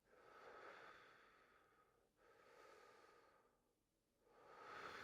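Faint, slow breathing: a man's three soft breaths, each lasting a second or two, taken in time with the exercise's movements.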